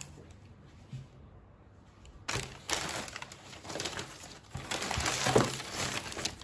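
Crumpled newspaper packing rustling and crinkling as it is pulled out of a cardboard box, starting a couple of seconds in and going on in uneven bursts.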